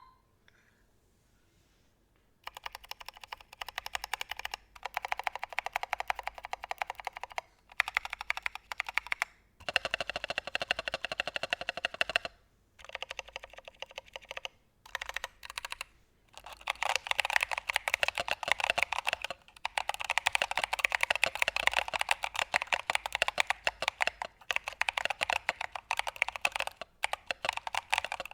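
Typing on a 65% IDOBAO ID67 mechanical keyboard fitted with Neapolitan Ice Cream heavy tactile switches and PBT keycaps: rapid keystroke clacks in runs broken by short pauses, starting after about two seconds of quiet.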